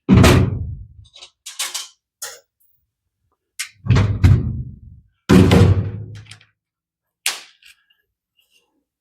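Three heavy thunks as parts of the filter box are set down and knocked into place, each fading over about a second, with lighter clicks and clatter between them and one sharp click near the end.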